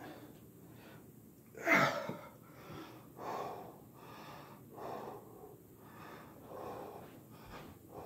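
A man breathing hard, winded in the middle of a set of push-ups. About two seconds in comes one loud exhale with a falling groan in it. After that come deep, steady breaths about every second and a half.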